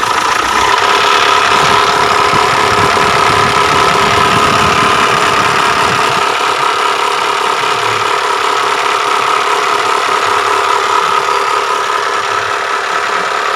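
Mitsubishi Triton's 4D56 four-cylinder diesel engine running steadily with a rough, snoring growl from the timing belt area. The mechanic traces it to a slack timing belt whose non-original tensioner cannot hold tension.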